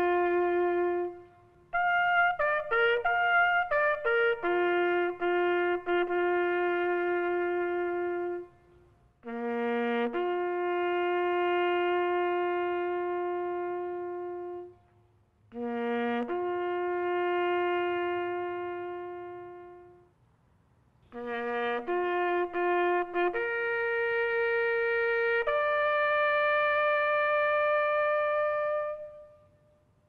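Solo trumpet or bugle playing a slow bugle call. It sounds long held notes drawn only from the bugle's few natural tones, in phrases with short pauses between them, and finishes on a long high note.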